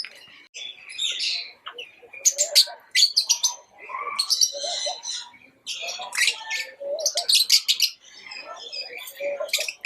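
Pet lovebirds chirping: rapid, high-pitched chirps and chatter in quick bursts with brief pauses between.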